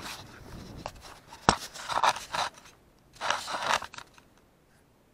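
Hands handling the camera right against its microphone: short spells of rubbing and scraping, with one sharp knock about a second and a half in.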